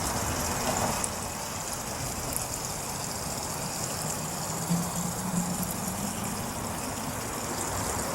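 Water running steadily into the premix tank of a compressed-air foam extinguisher as it is filled.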